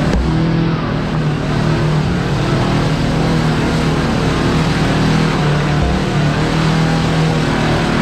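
Kawasaki KRX4 1000 side-by-side's parallel-twin engine running steadily while driving a rocky trail, its pitch wavering slightly.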